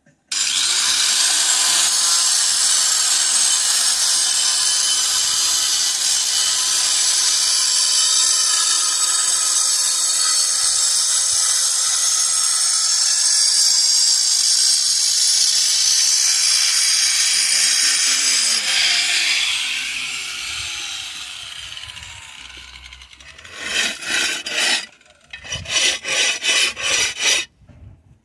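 A power tool running steadily at full speed, cutting, for about eighteen seconds, then spinning down with a falling pitch. Several short bursts of it follow near the end.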